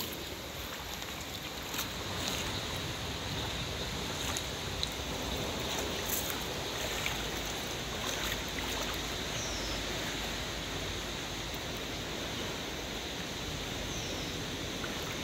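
Steady wash of shallow water lapping at the shoreline, with a low rumble underneath and a few faint clicks.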